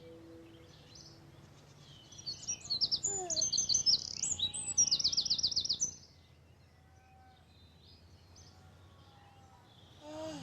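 Birdsong: quick high chirps and a fast trill of repeated notes, loudest from about two to six seconds in, then a few fainter chirps.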